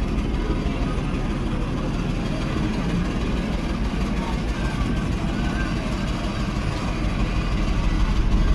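Wind buffeting the microphone: a steady, fluttering low rumble with an even hiss over it.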